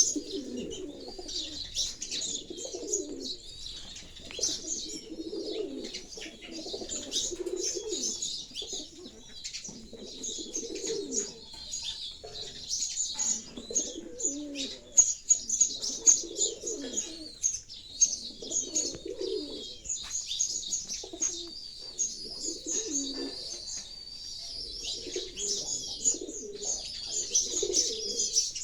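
Pigeons cooing in low, repeated phrases every second or two, over steady high chirping of sparrows.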